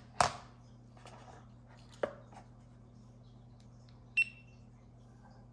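Sharp clicks from handling a GoPro Hero 11 Black action camera, the loudest just after the start and another about two seconds in, then one short high electronic beep from the camera about four seconds in.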